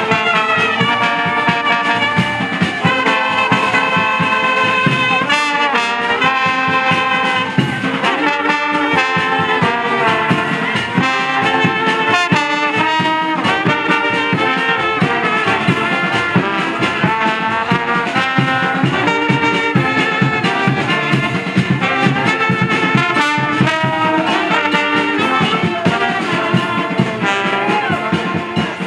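Military brass band playing live: trumpets, trombones, saxophone, French horn and euphoniums carry a melody together over drums.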